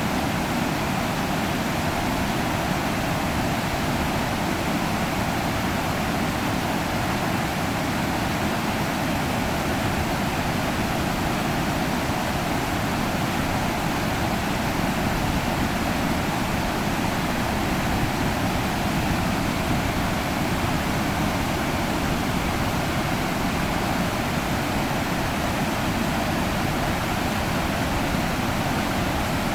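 Iruma River water rushing, a steady unbroken noise with no changes.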